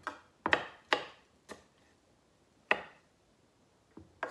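Kitchen knife chopping okra on a wooden cutting board: about six separate cuts at an uneven pace, each a short sharp knock of the blade on the board.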